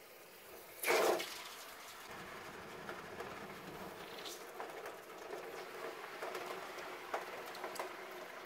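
Hot copper-alloy ingot quenched in a tub of water: a loud hiss about a second in, then steady sizzling and bubbling with scattered small crackles.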